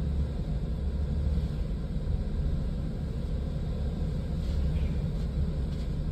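A van's engine running at low speed, heard inside the cabin as a steady low rumble while the van is slowly maneuvered back into a parking spot.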